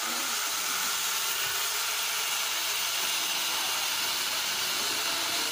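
Electric angle grinder fitted as a mini chainsaw, with a bar and chain, running steadily at full speed as the chain cuts into a wooden tree stump.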